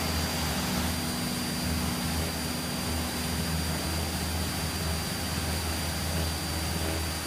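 Cessna 172's engine and propeller droning steadily at climb power, heard from inside the cockpit.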